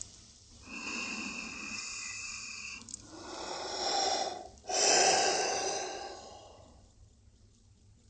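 A dog making three long, breathy vocal sounds. The first carries a thin, steady high tone, the second swells, and the third is the loudest and fades away.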